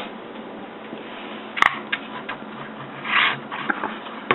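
Handling noises from small plastic parts and packaging: scattered light clicks, one sharp click about a second and a half in, and a short scrape about three seconds in.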